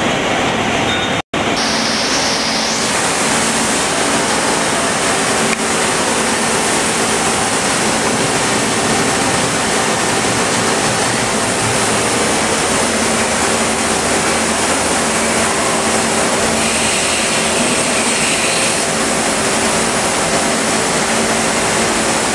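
Steady running noise of a CNC lathe's pumps and motors: an even, loud hiss with a faint steady hum under it, which breaks off for an instant about a second in.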